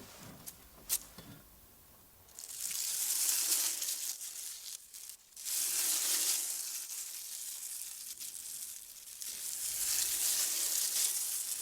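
Foley sizzle made by working a sheet of paper by hand, imitating vegetables dropped into hot frying oil. It is a crackling hiss that comes in after a couple of seconds and runs in two long stretches with a brief break between them.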